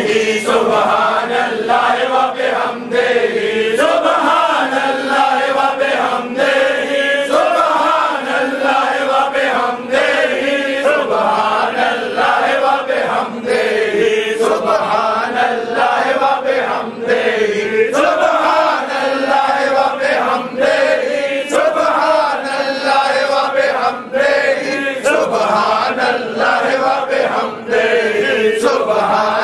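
A group of men chanting dhikr together, a devotional phrase repeated over and over in a steady rhythm.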